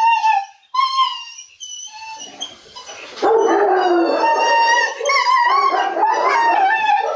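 Rottweiler whining and howling in high, wavering cries while held during a mating; about three seconds in the cries turn much louder and rougher and keep on.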